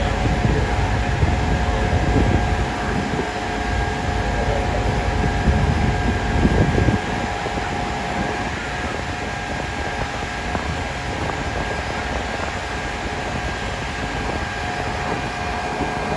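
Steady drone of fire apparatus engines running, with a constant whine in it. Wind buffets the microphone in gusts for the first seven seconds or so, then eases.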